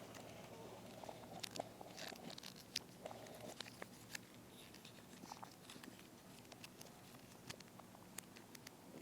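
Faint, scattered small clicks and crinkles of hands handling a plastic Transformers toy and its packaging.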